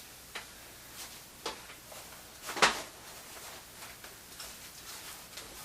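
Plastic parts of a Chicco jogging stroller clicking and knocking as it is handled during assembly: a few light clicks, then one sharp knock about two and a half seconds in, and a few fainter ticks after.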